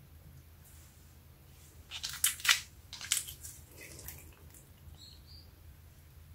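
Hands squeezing and pressing a lump of pearly green slime: a cluster of sharp crackles and pops about two seconds in, over roughly a second and a half, then fainter squishes.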